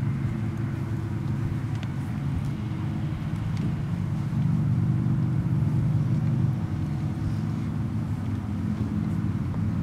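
A steady low engine drone, a little louder from about four seconds in.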